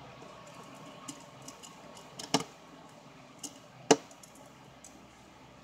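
Light clicks and taps of a precision screwdriver and small screws against a smartphone's metal midframe, with two sharper clicks about two and a half and four seconds in.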